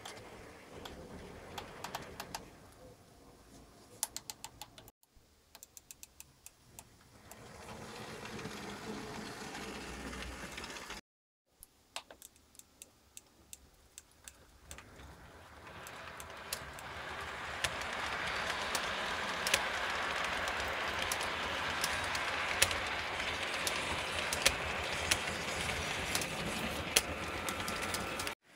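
H0 scale model trains running on the layout: wheels clicking irregularly over rail joints and turnouts, with the train's steady running noise growing louder from about halfway through as it passes close by.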